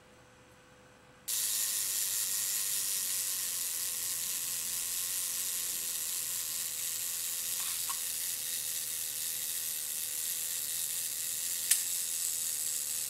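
A steady hiss starts abruptly just over a second in. Under it are faint clicks from the 1968 Kiev 4 rangefinder's wind lever and shutter mechanism being worked. One sharp click near the end, as the shutter fires.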